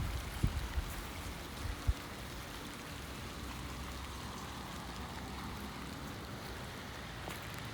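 Steady rain falling, an even hiss, with a couple of short low thumps in the first two seconds.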